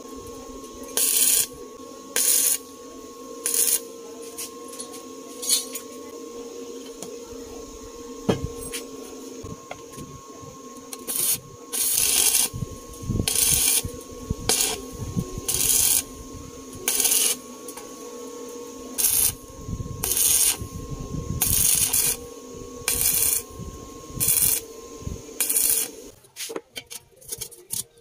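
Stick arc welder laying a series of short tack welds on sheet steel: about twenty separate bursts of crackling arc hiss, each under a second, some longer near the middle. A steady hum runs underneath and stops shortly before the end.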